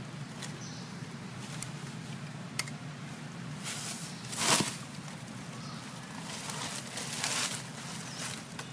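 Dry leaf litter rustling and crackling, with a few sharp clicks early on and a short, louder rush of rustling about four and a half seconds in, over a steady low hum.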